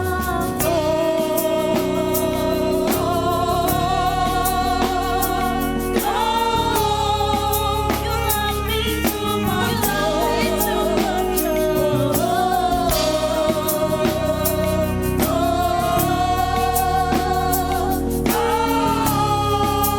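Gospel worship song: singers hold long notes with vibrato over sustained keyboard chords and a steady drum beat.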